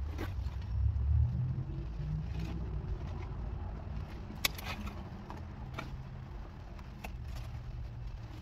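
A motor vehicle engine running, rising in pitch about a second in and then holding steady. Scattered sharp clicks and rustles of old roofing scraps being picked up.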